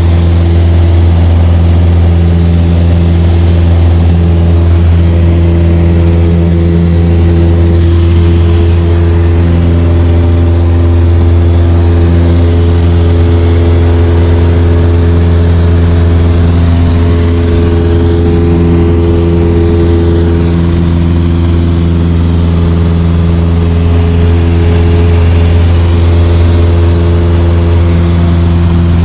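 Light aircraft's engine and propeller running steadily in flight, a loud, even drone with a deep hum and several steady tones above it.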